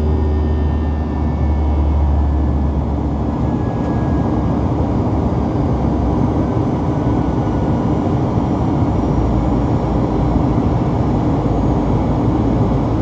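Steady cabin noise of a Boeing 737-700 in flight, heard from a seat beside its CFM56-7B turbofan: engine and airflow noise, with a deep hum that fades about three and a half seconds in.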